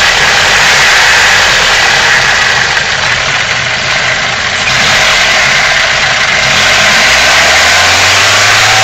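BMW M42 1.8-litre four-cylinder engine idling roughly, an uneven idle that persists despite new injectors. Near the end the engine speed rises slightly.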